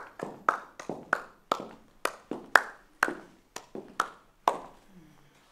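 One person clapping slowly and steadily, about three claps a second, each echoing in a bare room, stopping about four and a half seconds in.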